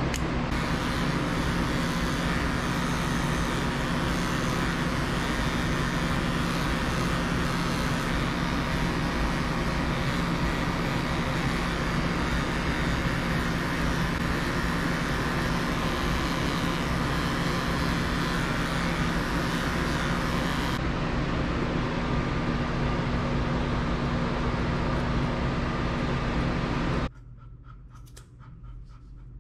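Steady, loud whir of electric pet-grooming equipment with a low motor hum. It cuts off sharply about 27 seconds in, leaving a quieter background with a few light clicks of grooming scissors.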